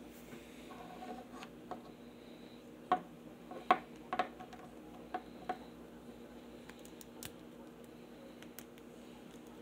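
Small plastic sword-swinging skeleton pirate Happy Meal toy being handled: a few sharp plastic clicks and taps as its arm is worked, the loudest about three and four seconds in, then only faint handling.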